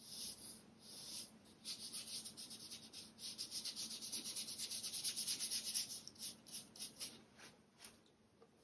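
Watercolour round brush scrubbing paint onto paper in short back-and-forth strokes, quickening to about five or six a second midway, then thinning to a few single strokes before stopping near the end.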